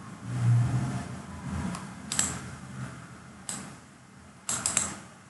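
Computer mouse clicking: a single click about two seconds in, another a second later, then a quick run of three clicks near the end.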